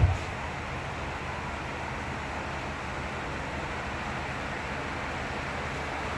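Steady rush of road and wind noise from a moving car, even and unbroken, with no distinct squeaks or creaks standing out.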